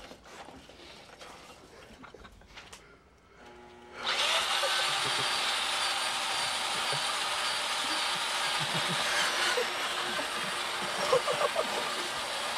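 Quiet for about four seconds, then the motor-driven spinning gyro-meat cones of a mock car-wash rig start up and run with a loud, steady power-tool drone to the end.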